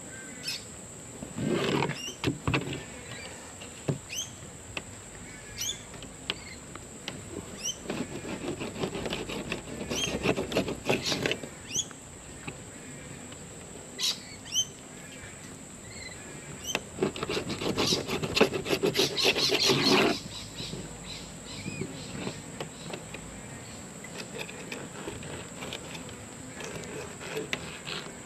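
Birds calling with many short rising chirps over a steady high-pitched insect drone. Two bursts of rapid scratchy scraping come through, about a third of the way in and again about two-thirds in, louder than the birds.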